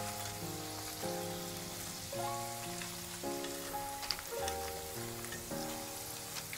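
Potato fries sizzling in hot cooking oil, a steady hiss, with a light click about four seconds in. Background music of sustained chords changing about once a second plays over it.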